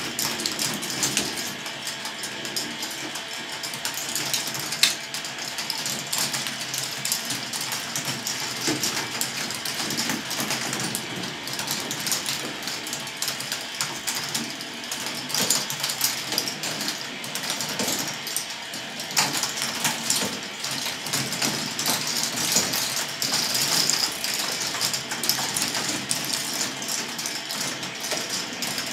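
Large K'nex ball machine running: a continuous clatter of many plastic balls rolling and knocking along the plastic tracks, with dense ticking from the motor-driven lifts, and an occasional sharper click standing out.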